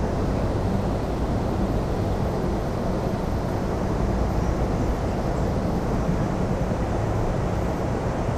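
Steady rumble of a moving Amtrak Empire Builder passenger train heard from inside a Superliner car: wheels rolling on the rails and the car body running, even and unbroken.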